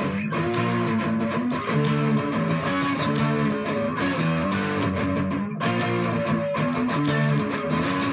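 Solid-body 12-string electric guitar, strung in octaves, played through fuzz: strummed chords and riffs with the chords changing about twice a second and a brief break about five and a half seconds in.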